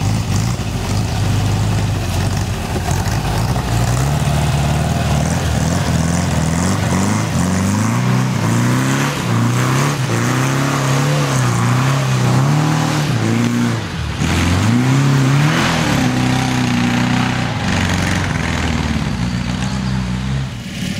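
Volkswagen Beetle's air-cooled flat-four engine pulling away and revving up and down again and again as the car works through a trials section. There is a sharp brief drop in revs about two-thirds of the way through, and the sound eases near the end as the car gets further off.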